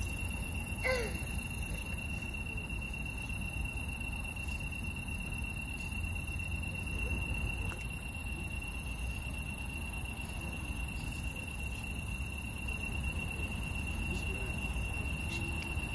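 Crickets and other grass insects singing steadily at night, a continuous high-pitched chorus over a faint low rumble.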